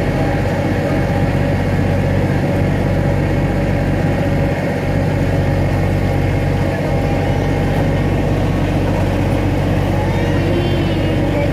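Miniature ride-on train's engine running steadily with a constant low hum as the train moves along the track.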